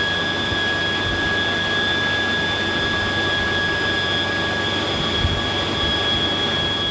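CH-53K King Stallion heavy-lift helicopter running steadily: a constant high-pitched whine over a broad rumble, with no gunfire.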